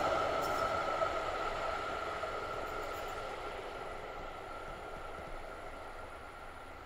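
DÜWAG GT6 tram rolling away on the track: its running noise and a steady whine fade gradually as it draws off.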